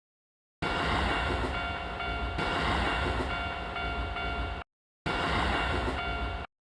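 A train passing over a railway level crossing: a steady rumble with a level-crossing warning signal ringing over it. The sound breaks off abruptly into dead silence twice.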